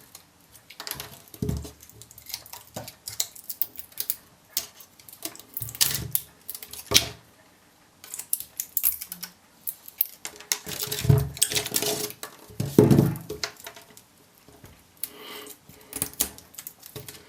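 Irregular metallic clicks, clinks and scrapes as leftover welded metal strips are cleaned off 18650 lithium-ion cells by hand.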